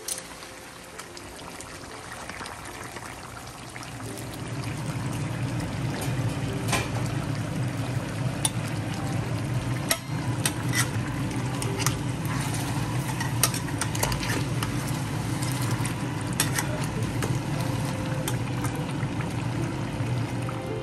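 Charcoal being heated over a stove flame for smoking the karahi: a steady low rushing that grows louder about four seconds in, with scattered sharp crackles.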